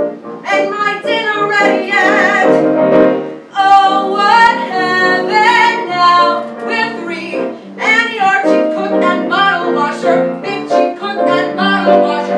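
A woman singing a musical-theatre song over instrumental accompaniment, holding long notes with vibrato.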